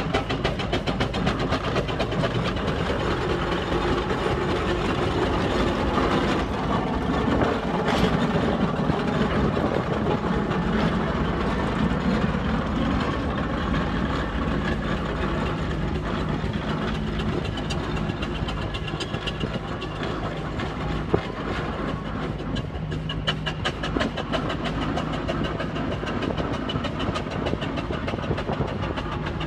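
Steam traction engine working, a continuous dense mechanical clatter. A steady low hum comes in about halfway through.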